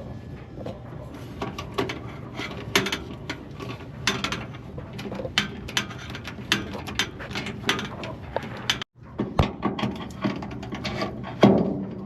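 Repeated sharp metal clicks and clanks of hand tools and exhaust parts being worked, over a steady low hum. The sound cuts out for a moment about nine seconds in.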